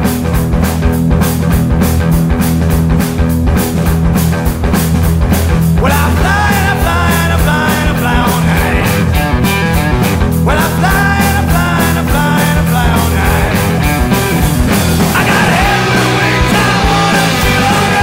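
Rock song played by a guitar, bass and drums trio over a steady drum beat. Sung vocal lines come in about six seconds in and again twice later.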